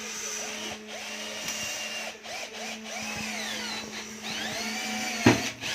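An electric power tool running, its pitch wandering up and down as it works, over a steady hum. There is one sharp knock near the end.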